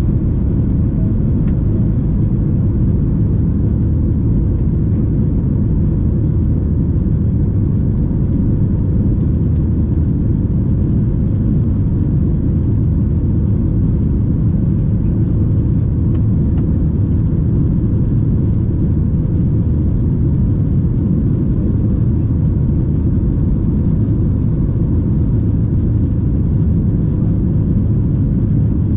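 Boeing 737-800 cabin noise during the climb just after lift-off: its CFM56-7B engines and the airflow over the fuselage make a steady low rumble with a faint constant hum, heard from inside the cabin.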